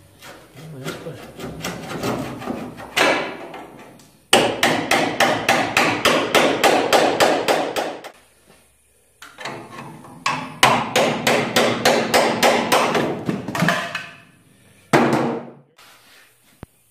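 Hand hammer striking a cold chisel driven into the seam between two spot-welded steel truck body panels, splitting them apart: rapid metallic strikes, several a second, in three runs with short pauses, then a single strike near the end.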